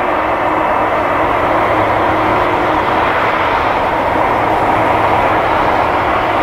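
Boeing 747-400 freighter's four General Electric CF6-80C2 turbofan engines running at taxi power: a steady jet-engine noise with a few held tones, even in level throughout.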